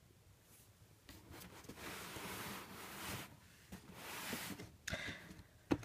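Faint rustling and rubbing of a hand moving over a cardboard shoe box, starting about a second in, with a couple of small taps near the end.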